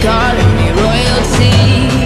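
Background music: a pop-rock song with a singing voice.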